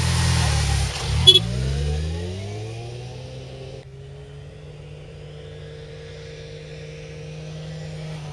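Motorcycle engine revving as it pulls away, pitch rising through the gears, then fading as it recedes; a brief sharp sound comes about a second in. After a cut midway, a motorcycle engine is heard at a distance, running steadily and growing slowly louder as it approaches.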